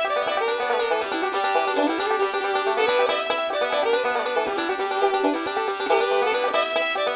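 Background music: a quick banjo-led bluegrass tune with plucked strings.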